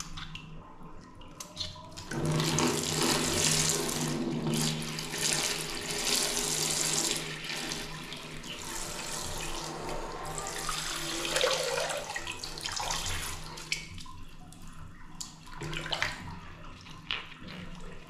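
Water squirting in a thin jet from a pin-pricked water balloon and splashing into a tub of water, a steady hiss like a running tap. It starts about two seconds in and fades out past the middle, with one more short spurt near the end.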